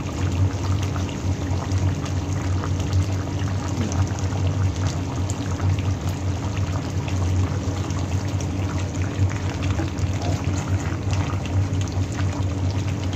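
Chicken kaldereta stew simmering in a pan, its coconut-milk sauce bubbling and popping as it reduces, over a steady low hum.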